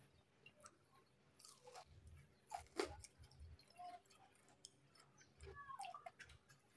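Close-up eating sounds: a person chewing food, with scattered soft wet mouth clicks and smacks.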